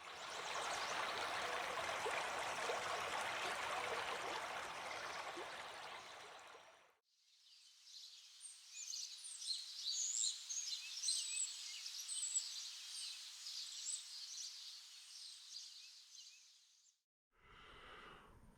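Steady rushing of flowing water for about seven seconds, fading out, then high bird chirps that fade in and out.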